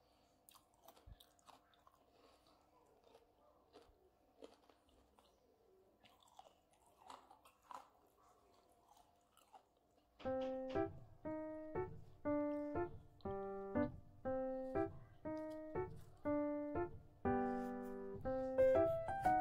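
Faint crunchy chewing of crisp fried onion rings for about ten seconds, then piano music comes in, with about two notes a second.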